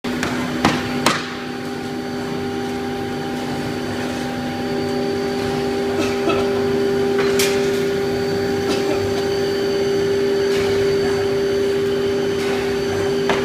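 Multi-spindle CNC router running steadily while it cuts a laminated board, its spindle holding one steady hum over the hiss of dust extraction. A few sharp clicks cut through it, two about a second in and another past the middle.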